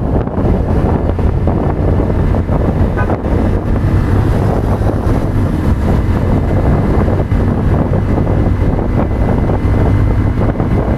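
Wind rushing over the microphone of a motorcycle moving at speed, over the steady drone of the Hero Hunk's single-cylinder engine holding a constant cruise.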